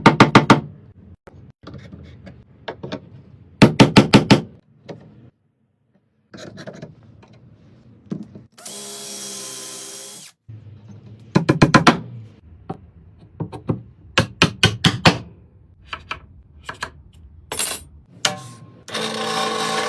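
Woodworking tool sounds. There are several bursts of five or six rapid sharp strikes with single knocks between them, a power tool runs for about two seconds midway, and a steady power tool starts near the end.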